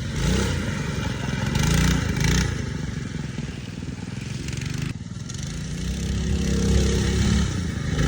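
Mini bike's Predator 212 single-cylinder four-stroke engine revving up and down under throttle as the bike is ridden, with a brief drop in engine note about five seconds in before it revs again.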